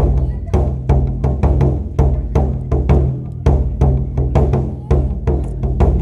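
Wadaiko (Japanese taiko drums) played in a fast, driving rhythm: rapid stick strikes, several a second, with heavier accented beats and a deep resonance.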